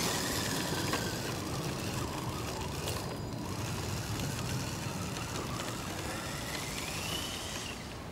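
Electric motor and gearbox of a 6x6 RC truck whining, its pitch rising and falling with the throttle and climbing near the end before cutting out. Its tyres crunch over dirt and dry leaves.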